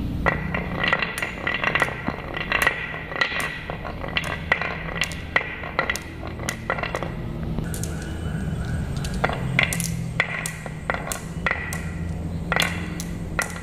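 Glass marbles rolling down a carved wooden zigzag track and clinking into the row of marbles stopped at the bottom, many sharp clicks and pings one after another.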